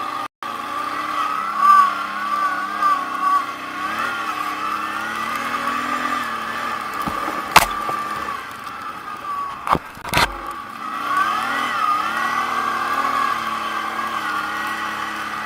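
ATV engine running while riding, its pitch rising and falling with the throttle. Three sharp knocks come about halfway through.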